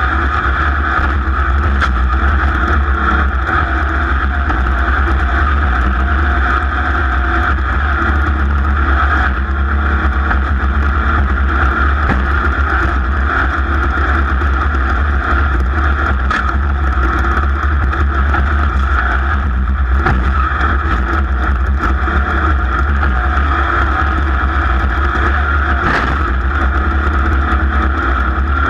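A racing vehicle's engine running hard and steady at high revs under race load, with wind buffeting the microphone.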